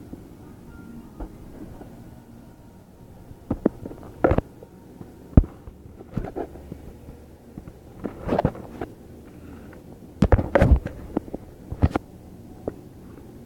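Handling noise of a phone: irregular knocks, rubs and thumps on the microphone. They come in clusters about four seconds in, around eight seconds and from ten to twelve seconds, with the sharpest single knock about five and a half seconds in.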